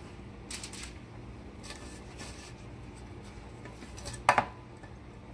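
Aluminium foil on a baking sheet crinkling faintly as raw biscuit dough rounds are set down on it by hand, with one sharp knock about four seconds in.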